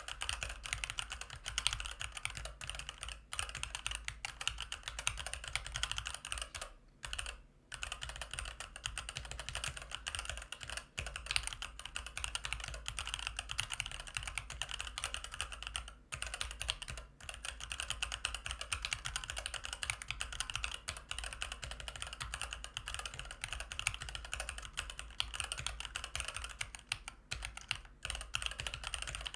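Continuous fast typing on a Varmilo MA87M mechanical keyboard with Varmilo EC Daisy V2 switches, a dense stream of key clicks with a couple of brief pauses about seven seconds in.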